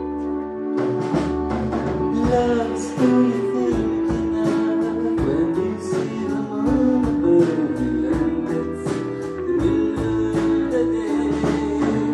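Live band music with guitar and a singing voice.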